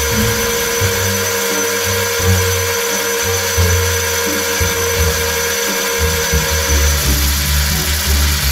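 Metal lathe running and taking a cut on a steel chuck backplate, a steady machine whine with a fixed tone, while background music with a bass line plays over it.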